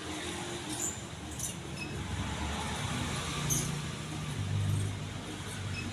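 Ceiling fan running: a low motor hum with a few faint, short high ticks.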